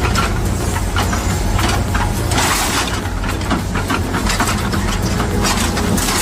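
A heavy machine's engine running steadily, with many irregular cracking and clattering knocks over it and a brief hissing burst about two and a half seconds in.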